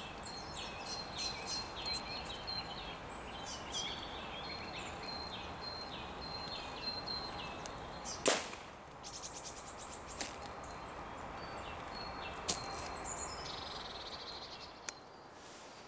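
Birds singing in woodland, with one sharp air rifle shot about eight seconds in; the shot strikes a grey squirrel on a feeder.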